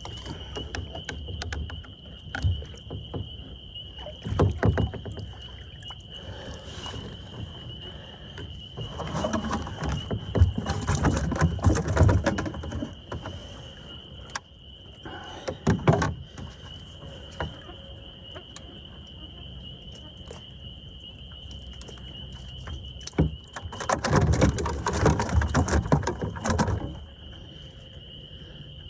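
A carp shot with a bowfishing arrow thrashes and splashes at the side of a kayak in several bursts of a few seconds each, the longest near the middle and near the end. A steady high insect trill runs underneath.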